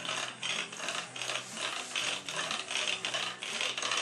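Wooden rolling pin rolled back and forth over dough on a floured wooden table, a rough rolling stroke about two to three times a second.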